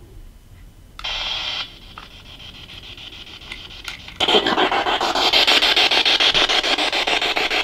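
SB7 spirit box switched on: a short burst of radio static about a second in, then from about four seconds in loud, continuous static chopped into rapid, even steps as it sweeps through radio stations.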